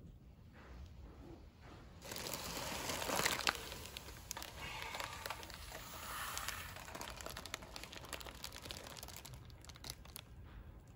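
A car tyre rolls over a plastic-bagged Warburtons Farmhouse soft white loaf and squashes it flat, the plastic bag crinkling and crackling. The noise starts suddenly about two seconds in, is loudest a second or so later, then goes on with scattered crackles that thin out near the end.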